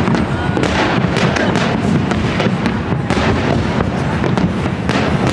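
Continuous fireworks barrage with many overlapping bangs and crackles and a low rumble underneath.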